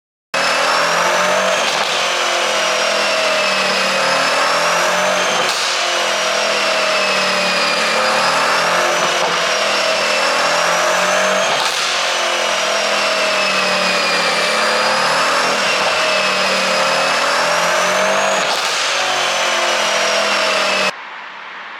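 Mercedes-AMG C63's twin-turbo V8 held at high revs, its pitch rising and falling in slow waves every few seconds, with a few sharp cracks along the way. It starts and cuts off abruptly.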